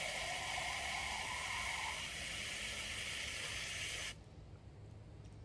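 Water hissing steadily from a garden hose nozzle as it fills empty aluminium soda cans, then shut off suddenly about four seconds in.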